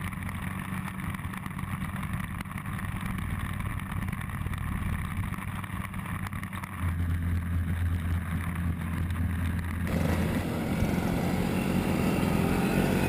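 Motorcycle engine running steadily at road speed, with wind and road noise. The engine note grows stronger about seven seconds in. About ten seconds in it gives way to a louder, rougher mix of engine and traffic noise.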